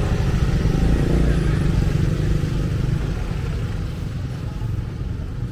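A motorbike engine passing close, loudest about a second in and fading off after that.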